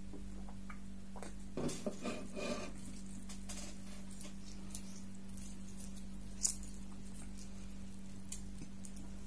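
Fingers handling food, tearing paratha and working into oily beef curry, making a short run of soft crackling, squelching sounds, then a single sharp click later on, over a steady low hum.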